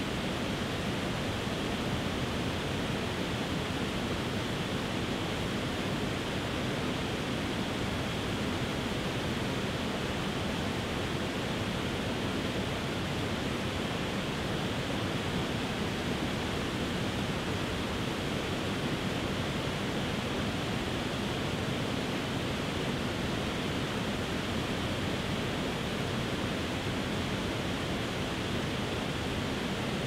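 Tiered waterfall cascading over rock ledges: a steady, even rush of falling water.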